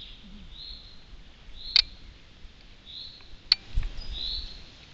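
A songbird calling over and over, short high notes about once a second. Two sharp clicks, the loudest sounds, cut in, and a brief low rumble comes near the end.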